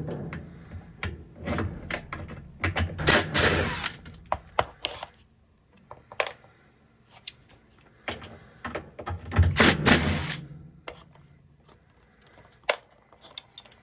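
Cordless impact driver with a 5/16 nut driver backing out drain-pump mounting screws in two bursts of rapid hammering, about three seconds in and about eight seconds in, with clicks and knocks of tool handling between.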